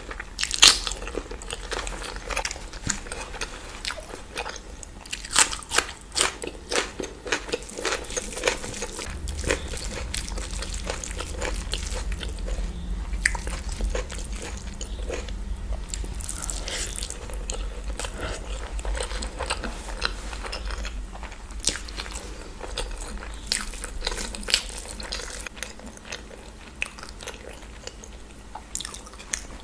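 Close-miked eating: a person biting and chewing food, a steady run of sharp crunches and wet mouth clicks, with a low rumble underneath through the middle.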